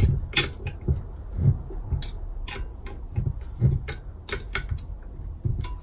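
A 10 mm ring spanner clicking on the front bolt of a turbocharger's actuator bracket as it is worked tight: short, uneven clicks, about two a second.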